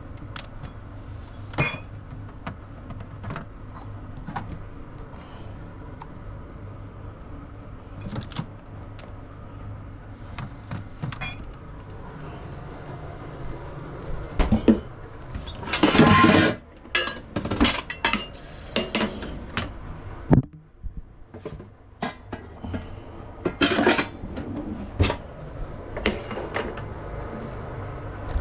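Dishes, pots and cutlery clinking and clattering as food is prepared, over a steady low hum, with a louder rushing burst about a second long around the middle.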